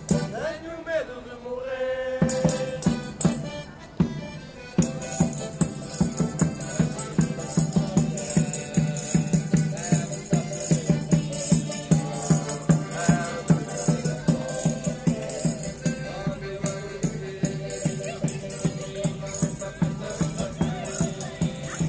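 A band playing live, rhythmic music with tambourines jingling on a steady beat.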